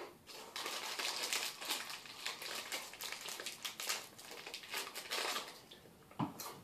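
Crinkling and rustling of a small Mini Takis chip bag being handled, a dense irregular crackle that dies away about a second before the end.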